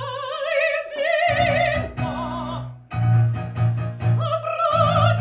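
Operatic female singing with strong vibrato on long held notes, over piano accompaniment that repeats low notes and chords.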